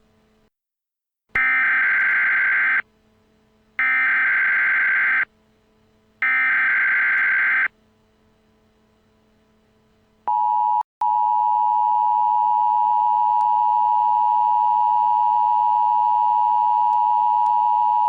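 Emergency Alert System tones: three loud, screechy SAME digital header bursts, each about a second and a half long, followed a couple of seconds later by the steady two-tone EAS attention signal, which drops out for a moment just after it starts and then holds on.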